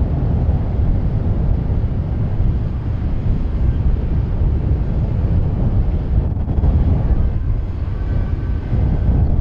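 Wind buffeting the microphone outdoors, a steady loud low rumble, with faint brief tones in the background near the end.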